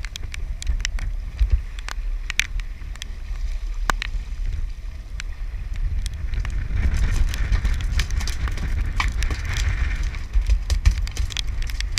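Wind rumbling on the camera microphone, with many irregular sharp clicks and taps scattered throughout.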